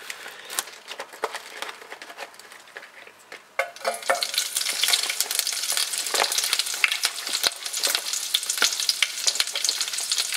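Tenderstem broccoli dropped into hot grapeseed oil in a pot, which breaks into loud, dense sizzling and crackling about four seconds in. Before that there is only a faint hiss and a few light clicks.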